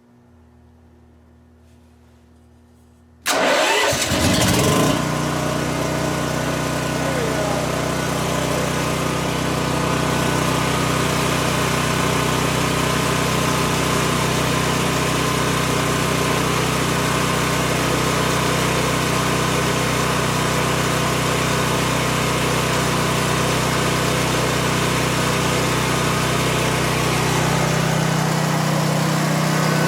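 A propane-fuelled backup generator's engine starts about three seconds in. It cranks briefly and catches, then runs at a steady, constant speed.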